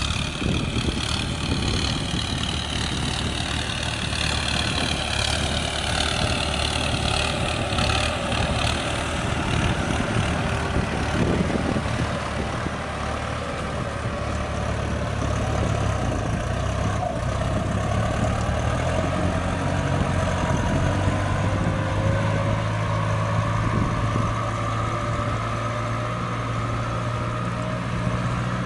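Kubota M6040 tractor's diesel engine running steadily as it works in mud. A whining tone falls slowly over the first several seconds, and another tone slowly rises in pitch toward the end.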